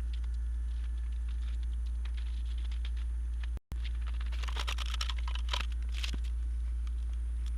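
Light crackling and clicking of a vinyl tarp and sticky rubber-backed repair tape being handled and pressed on. The sound is densest in a burst shortly after a brief drop-out about four seconds in, over a steady low rumble.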